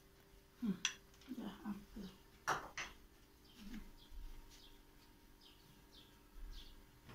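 Faint kitchen handling sounds: a few light clicks and knocks, the sharpest about two and a half seconds in, with faint short bird chirps from about three seconds in.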